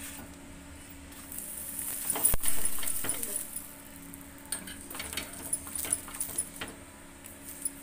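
Mustard oil sizzling on a hot iron tawa under a stuffed roti, swelling to its loudest about two seconds in with a sharp click, then fading. Light clinks and scrapes of a steel spoon spreading the oil follow.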